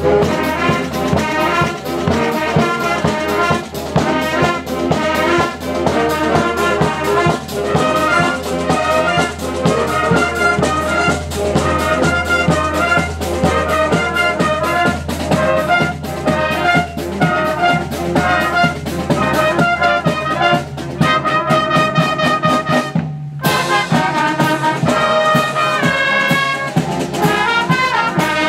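School band of saxophones, clarinet, trumpets, mellophone, trombones and a sousaphone playing a tune together in a quick rhythm. The sound cuts out for a moment about three quarters of the way through, then the band carries on.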